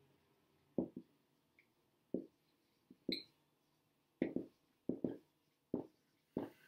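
Felt-tip marker writing on a whiteboard: about ten short, sharp taps as the tip strikes the board, irregularly spaced and bunched in pairs.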